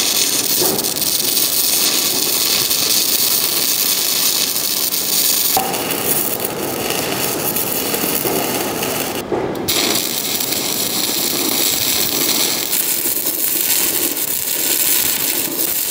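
Stick (arc) welder burning 2.5 mm electrodes, welding thin steel checker plate into a steel frame: a steady crackling hiss from the arc, broken by a short pause about nine seconds in.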